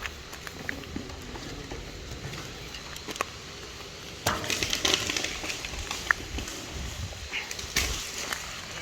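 Branches and twigs of a fallen tree crackling and snapping as they are dragged and broken up, a dense burst of crackling about four seconds in and another near the end, with scattered sharp snaps between.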